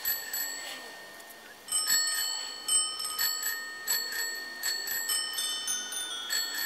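Bicycle bells ringing in a rhythmic run as part of a music track: a couple of rings at the start, then a steady pattern of rings of several pitches, about one and a half a second, from near two seconds in.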